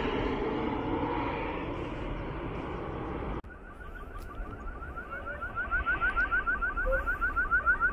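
Jet airliner passing low overhead on landing approach, its engine noise fading and then cut off abruptly about three seconds in. After that comes a fast, regular run of short rising chirps, about six a second, growing louder.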